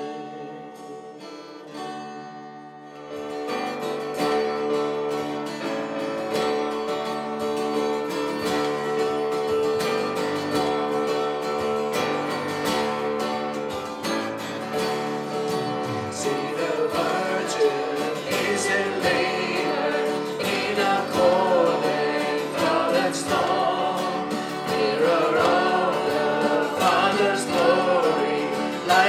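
Live worship-band music: keyboard and acoustic guitar playing a quieter held chord, then a fuller instrumental introduction from about three seconds in. A woman's singing voice comes in over it around halfway through.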